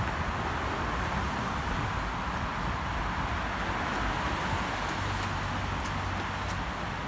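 Steady rushing outdoor noise, picked up by a handheld camera carried on a run.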